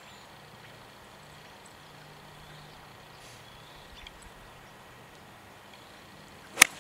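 A golf club striking a ball on a full swing: one sharp, loud click of impact near the end, against quiet outdoor background.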